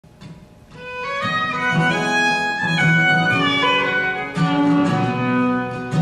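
A fiddle playing a melody over acoustic guitar accompaniment, fading in over the first second or so.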